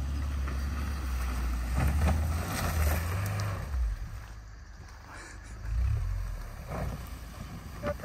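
Subaru Outback driving through tall weeds and brush: the engine runs under load while the stalks swish and crackle against the car. The engine sound drops away about halfway through, then comes back up.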